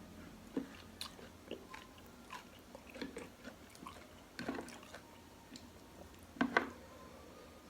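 A person chewing and eating bakso close to the microphone: scattered small wet clicks and smacks of the mouth, with two louder bursts about four and a half and six and a half seconds in.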